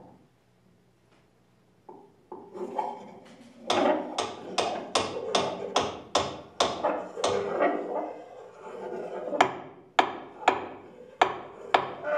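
Improvised percussion on small tabletop objects: a run of about a dozen sharp taps and knocks at roughly three a second, each with a short ringing tail, a brief pause, then a few more strikes near the end.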